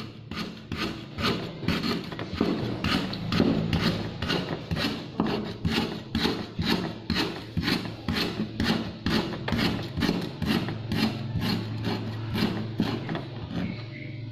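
Cleaver chopping on a wooden cutting board, a steady run of sharp knocks about two a second, over background music.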